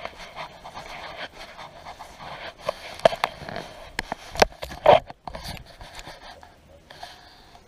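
Rubbing, scraping and crackling handling noise from a body-worn camera as someone walks along a track, with a few sharp knocks between three and five seconds in, after which it turns quieter.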